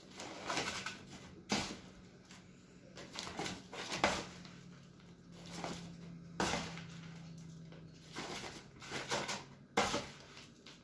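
Hemp seed being scooped from a plastic bowl with a plastic scoop and poured into a zip-lock plastic bag: the scoop scraping through the seed and the seed sliding into the bag, with about four sharp knocks of the scoop along the way.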